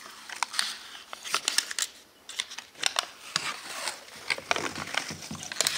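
Backing liner being peeled and handled off a sheet of double-sided tape, the thin film crackling and crinkling in a run of short, irregular clicks.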